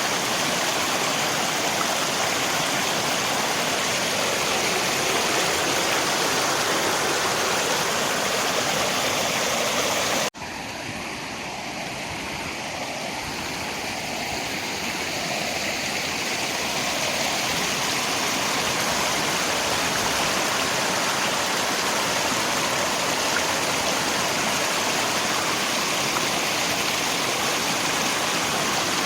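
River water rushing steadily, with rain, as one even noise. About ten seconds in it cuts out for an instant and returns quieter, swelling back to full level over several seconds, like a loop point in the recording.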